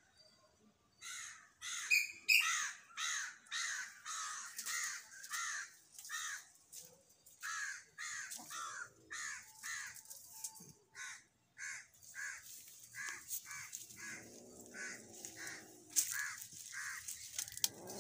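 Crows cawing over and over, a run of harsh caws about twice a second.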